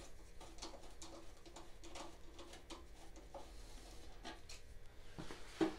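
A hand screwdriver with a Torx bit backing a screw out of a plastic mower dashboard: faint scratching and light irregular clicks, with a couple of sharper clicks near the end.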